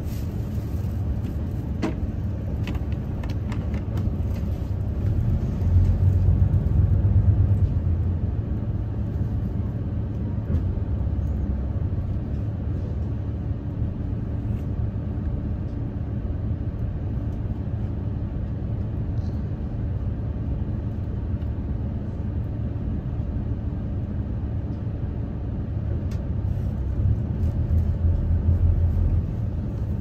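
Cabin noise inside a moving KiHa 85 series diesel railcar: a steady low rumble of its Cummins diesel engines and wheels on the rails. It swells louder about six seconds in and again near the end, with a few faint clicks about two to four seconds in.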